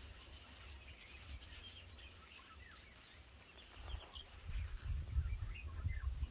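Birds chirping with short, rising and falling calls, over a low rubbing rumble from hands scrubbing shampoo lather through wet hair that grows louder about four seconds in.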